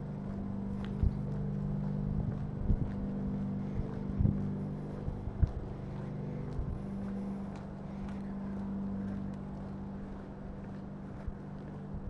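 A steady low engine hum that holds one pitch, with a few sharp knocks over it.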